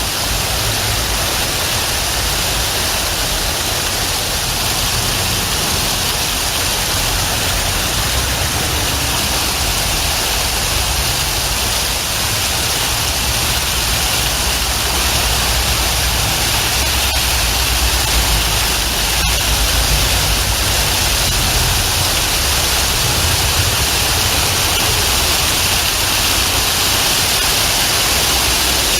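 Steady rain falling, an even hiss with a low, uneven rumble beneath it.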